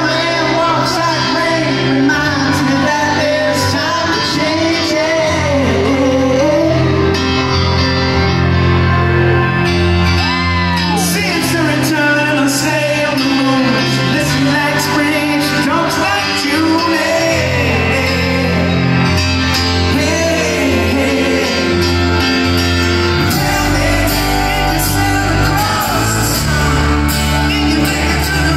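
Live rock band performing a song with lead vocals and piano, heard from the audience in a large arena. A deeper bass comes in about three quarters of the way through.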